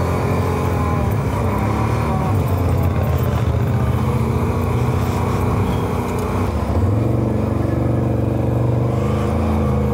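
Can-Am Renegade 1000R quad's V-twin engine running under load as it climbs a dirt track in low-range four-wheel drive. Its pitch dips slightly in the first couple of seconds and steps up, louder, about seven seconds in as the throttle opens.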